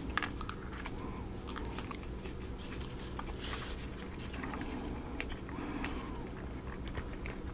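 Wooden puzzle-kit pieces being handled and pushed together: scattered small clicks and light rubbing of thin wood, ending in a sharp click as a piece snaps into place.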